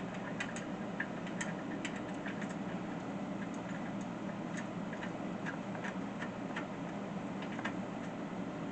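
Light, irregular metallic clicks as a bolt with its lock washer and flat washer is threaded into a wooden bed frame by hand, over a steady low hum.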